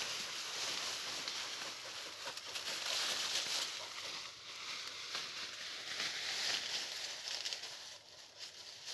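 Leaves and brush rustling and scraping against a moving person, with a few small crackles of twigs underfoot.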